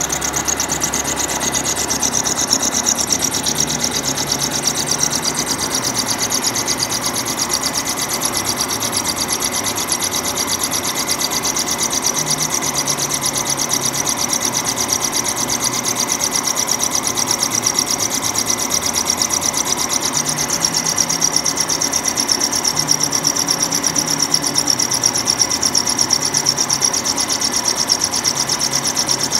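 Milling machine cutter taking a heavy roughing cut in Ampco 18 wear bronze: a steady cutting noise with a rapid, even pulsing.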